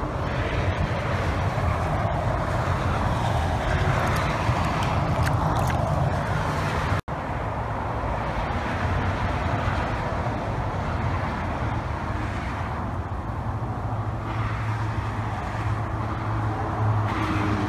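Steady low rumbling background noise, with a brief dropout about seven seconds in.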